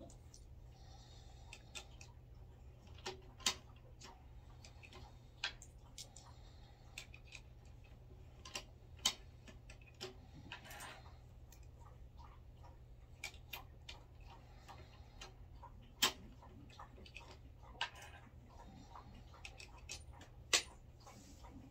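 Brass 300 Blackout cases and a Lee C-press with a flaring die being worked by hand: scattered sharp metallic clicks and clinks at an uneven pace, with a few louder ones standing out, over a low steady hum.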